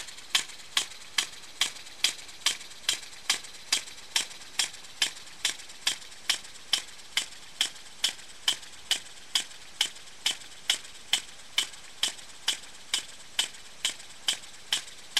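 Model poppet-valve engine running steadily on its single-lobe cam, taking a charge only once every fourth stroke. It makes sharp, evenly spaced clicks, about two and a half a second.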